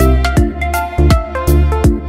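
Music with a steady beat and deep bass notes.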